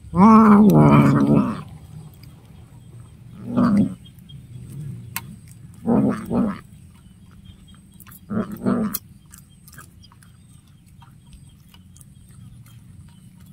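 Cat vocalizing: one long, loud call at the start, then three shorter calls a couple of seconds apart, the last two broken in two. Faint clicks of a cat chewing fish come in between.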